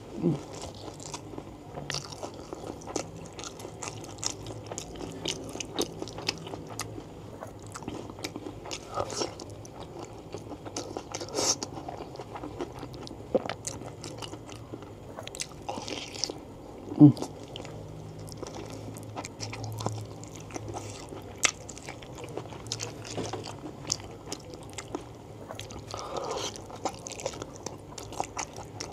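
Close-miked eating: a person biting and chewing fried battered tempeh and soft beef-foot tendon and fat in curry, with many small wet mouth clicks and crunches. A short low throat sound comes just after the start and a louder one about 17 seconds in.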